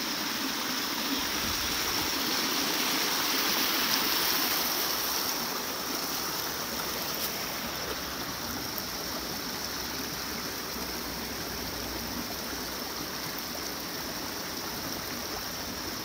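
Small mountain stream running shallow over rocks and splashing down a little cascade: a steady rush of water that swells slightly a few seconds in, then holds level.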